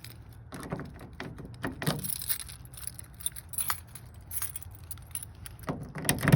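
A bunch of keys jangling with sharp clicks as a key is worked in the Ford F-150's tailgate lock to test whether it locks, with a louder clatter near the end.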